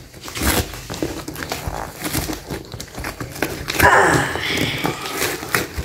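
Paper covering and packing tape being torn by hand off a cardboard box: repeated ripping, crackling and crinkling, busiest about two-thirds of the way in.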